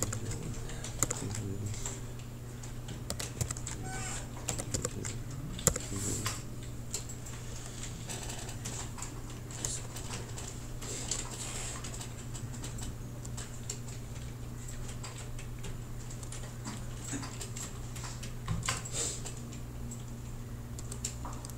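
Irregular clicks and taps of a computer keyboard and mouse, a few at a time with gaps between, over a steady low hum.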